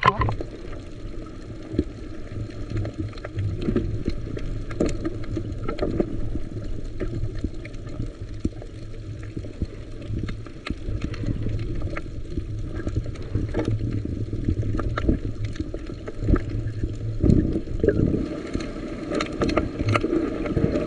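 Sea water sloshing and splashing around a small fishing boat in rough water, over a steady low hum, with scattered knocks and clicks.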